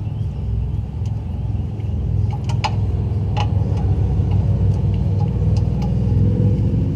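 Scattered sharp metallic clicks as the oil drain plug is threaded back in and tightened with a socket and ratchet, over a steady low rumble.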